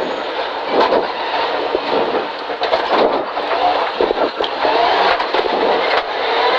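Rally car engine and drivetrain heard from inside the cabin, the engine note rising and falling as the car shifts down into first gear for a tight left and then accelerates back up into second.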